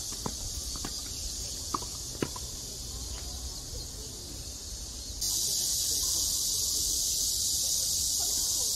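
Tennis balls struck by rackets a few times in the first couple of seconds, sharp pops over a steady high-pitched chorus of insects. The insect chorus and background get suddenly louder about five seconds in.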